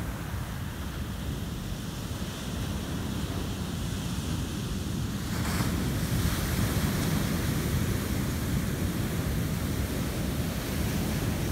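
Heavy ocean surf breaking and washing up a sand beach in a steady rush. About halfway through, a wave breaks close in and the surf grows louder.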